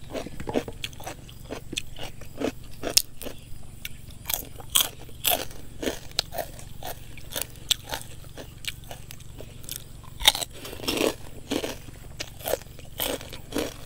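A person chewing crunchy food close to the microphone, with irregular crisp crunches and bites throughout: pork cracklings and raw vegetables eaten with rice noodles.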